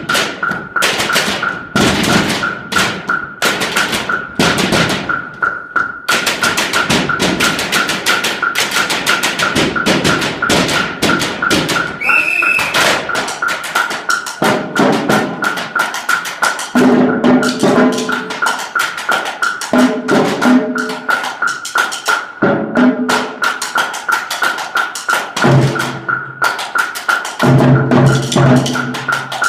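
Percussion ensemble playing: quick tapping and knocking on drums and hand percussion, with deeper pitched drum strokes joining from about halfway through.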